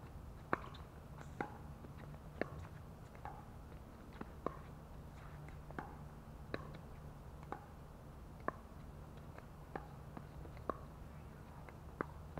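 Pickleball rally: paddles striking the plastic ball, with sharp pops about once a second, some with a short ringing tone. A low steady hum runs beneath.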